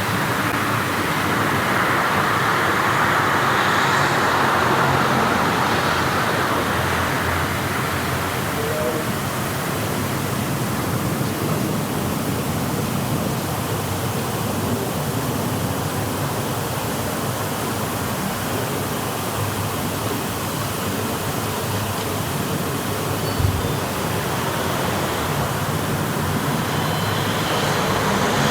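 Street ambience: steady road-traffic noise that swells louder over the first several seconds, with a single short knock about five seconds before the end.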